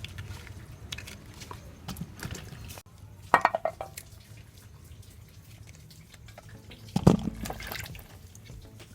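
Water splashing and dripping as something is handled in water, with two louder splashes, about three and seven seconds in.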